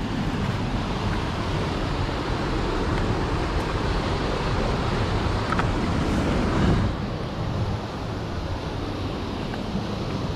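Steady rush of a waterfall pouring into a creek pool; it eases slightly about seven seconds in.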